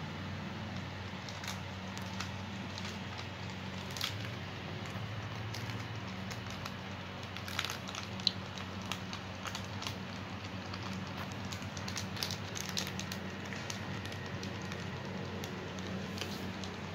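Small Pomeranian-type dog licking and smacking at ice cream, heard as scattered wet clicks and ticks, with a plastic wrapper crinkling near the end. A steady low hum runs underneath.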